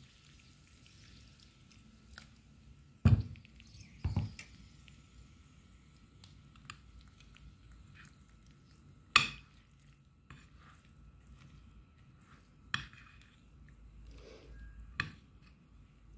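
A metal spoon stirring crushed chalk into a thick chocolate paste on a ceramic plate, with a handful of sharp knocks and clinks of spoon on plate: two about a second apart early, a loud one midway and two more near the end.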